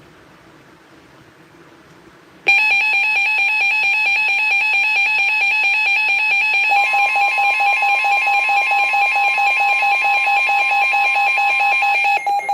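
Weather alert radio's alarm going off: after faint static, a loud, rapidly pulsing electronic tone starts suddenly about two and a half seconds in. A second, slightly higher tone joins around the middle and drops out near the end. It signals an incoming severe thunderstorm warning.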